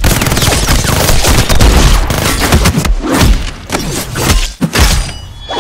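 Rapid gunfire sound effects: a dense run of shots for about three seconds, followed by a few separate heavy hits of a fist fight.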